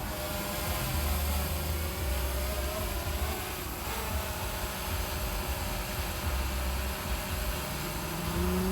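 DJI Phantom 3 Professional quadcopter's propellers humming with a wavering pitch, with gusts of wind buffeting the microphone. Near the end a second tone rises in pitch.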